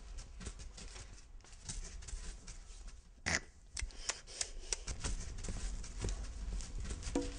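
Irregular soft clicks and rustles over a low steady hum, with a sharper click about three seconds in.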